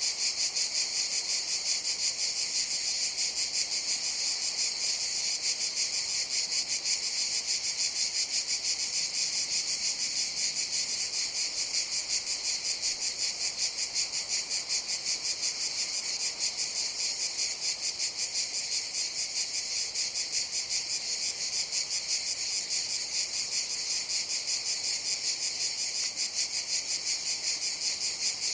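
Cicadas buzzing in a continuous, dense chorus with a rapid, even pulse, mostly high-pitched with a lower buzzing layer beneath.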